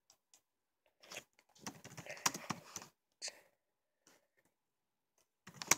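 Faint runs of quick small clicks and rustles: a dense cluster from about one to three seconds in, a short burst just after, and another run starting near the end.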